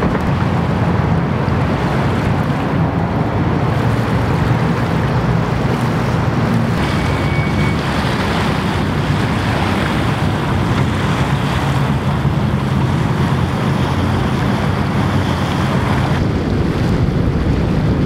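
Wind buffeting the microphone and water rushing along the hull of a sailing yacht under way, over a steady low drone.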